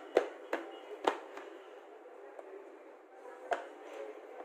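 Sharp plastic clicks and knocks from a mini handheld vegetable chopper's bowl and lid being handled: three in quick succession in the first second or so, and one more near the end.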